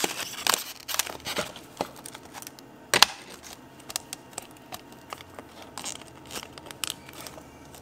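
Thin ice crackling and clicking as broken pieces are lifted away and a wooden stick pries at a carved ice snowflake, with one sharp crack about three seconds in.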